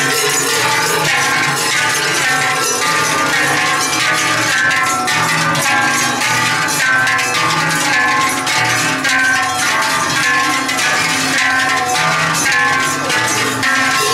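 Large cowbells worn by Silvesterchläuse clanging together in a dense, continuous ringing as the wearers sway.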